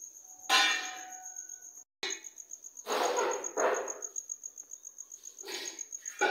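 Steel kitchen utensils clanging as they are handled and set down on a concrete floor: a ringing clang about half a second in and another near the end, with softer knocks and scrapes between. A faint steady high-pitched tone runs underneath.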